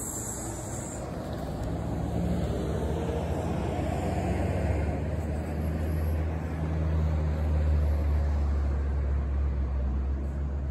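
A loud motorcycle engine approaching. Its low exhaust note builds steadily and is loudest about three quarters of the way through, then eases off slightly.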